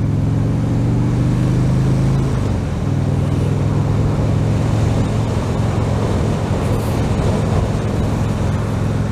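Harley-Davidson Dyna Switchback's V-twin engine accelerating with its pitch rising, dropping with an upshift a little over two seconds in, then running steadily at road speed. A steady rush of wind noise on the helmet microphone runs under the engine.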